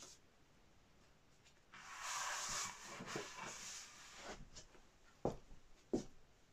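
A large paper screen print sliding and rustling as it is lifted and moved over a stack of prints, followed by two short taps as it is handled and set down.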